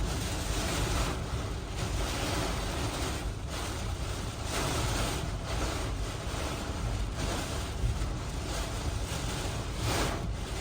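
Hurricane Milton's eyewall winds blowing hard and without a break, a rushing roar with heavy low rumble that surges in gusts, with stronger gusts about a second in, around the middle and near the end.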